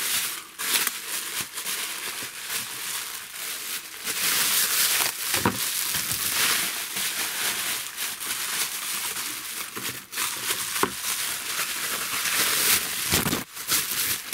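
Plastic bubble wrap being handled and pulled apart, with continuous crinkling and rustling and sharp crackles here and there.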